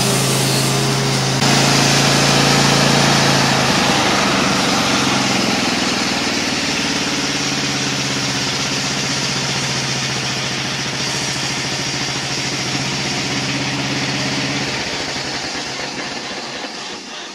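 Engine of a homemade bandsaw mill running steadily under load while the band blade saws through a frozen spruce log, a steady hiss of cutting over the engine's drone. The engine note cuts out about fifteen seconds in and the sound then dies away.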